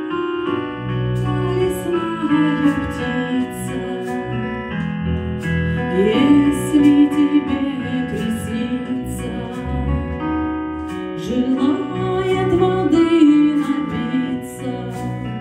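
Music: a woman singing over piano accompaniment, in sung phrases that glide up and down over held chords.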